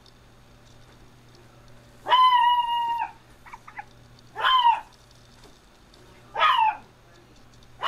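A dog's high-pitched calls: one long call held at a steady pitch about two seconds in, then three shorter calls about two seconds apart, each bending up and down in pitch.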